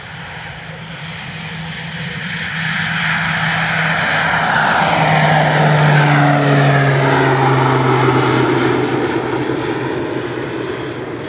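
Pilatus PC-12's single Pratt & Whitney PT6A-67 turboprop at takeoff power as the aircraft lifts off and climbs past. It grows louder to a peak about halfway through, the propeller drone and turbine whine drop in pitch as it goes by, and then it fades as the aircraft climbs away.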